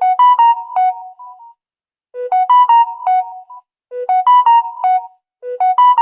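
A custom phone ringtone previewing: a short, bright, keyboard-like melody of a few quick notes, repeated four times about every second and three-quarters.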